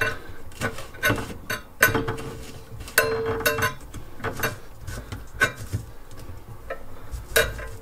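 Irregular clicks, taps and light metallic clinks of a sink's pop-up drain parts being handled as the pivot nut on the drain's pivot rod is tightened. A few of the knocks ring briefly.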